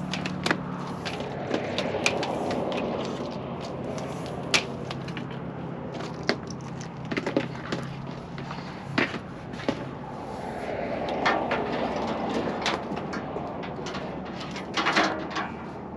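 Scattered sharp clicks, knocks and clatter of hardware being handled during a solar panel install on a trailer roof, over a steady low hum that stops about ten seconds in.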